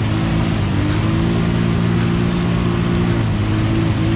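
ATV engine held at high revs while the four-wheeler spins its tyres through mud. The pitch rises about half a second in, holds steady, then dips briefly near the end and comes back up.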